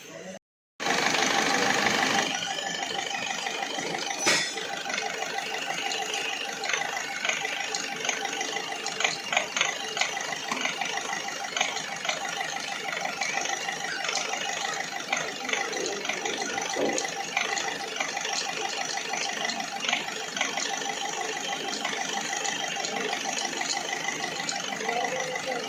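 Overhauled Ford Figo diesel engine running at idle. It comes in about a second in, a little louder for a second or so, then settles to a steady idle with light ticking.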